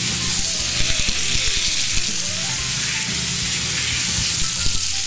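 A bone-in beef steak sizzling in a ridged grill pan over a gas flame, searing: a steady hiss with scattered crackles and pops.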